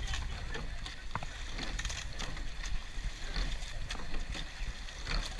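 Racing eight under way at race pace in choppy water: water rushing and splashing along the shell, with short clunks of the oars in their oarlocks at each stroke over a steady low rumble.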